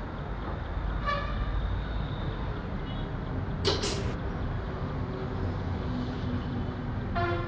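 A steady low engine rumble, with a short sharp noise a little past halfway.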